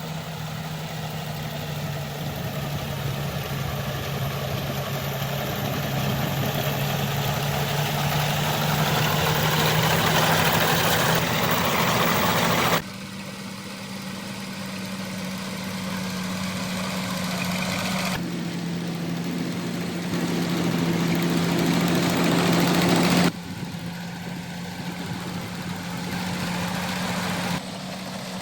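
Combine harvester's engine running steadily with a constant low hum. The sound swells and then drops abruptly twice, about halfway through and again past two-thirds of the way.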